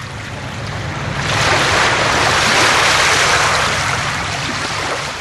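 Lake waves washing: a rush of water that swells about a second in, peaks, then eases off near the end, over a low steady rumble.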